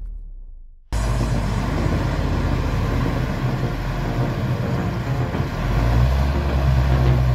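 A large engine running steadily. It cuts in suddenly about a second in and gets louder near the end.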